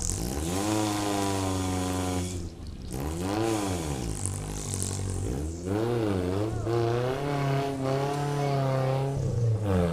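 Off-road 4x4 engine revving up and down, its pitch rising and falling over and over, with two short breaks as the throttle is let off.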